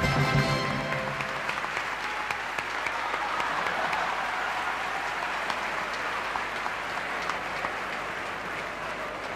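Large audience applauding steadily, many hands clapping together; music fades out about a second in.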